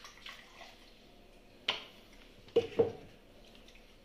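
Clinks and knocks of a French press with a glass carafe being handled: one sharp clink a little under two seconds in, then two knocks close together just under a second later, each with a short ring.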